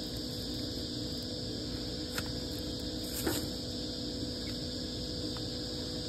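Steady machine hum and hiss, with two sharp clicks about two and three seconds in.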